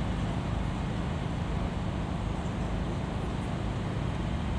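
Steady low rumble of outdoor ambient noise, with no distinct events.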